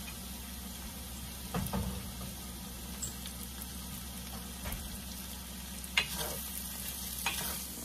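Pork pieces with chopped onion and garlic sizzling in oil in a stainless steel skillet, a steady hiss. A few short knocks and scrapes of a plastic spatula stirring break through it, the sharpest about six seconds in.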